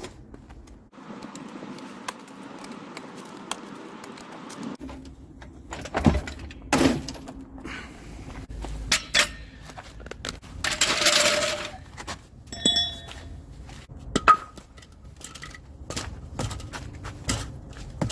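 Metal tools and wheel hardware clinking and knocking: sockets, lug nuts and jack handled while loosening a car's wheel. Irregular sharp clinks throughout, with a denser noisy burst lasting about a second and a half near the middle.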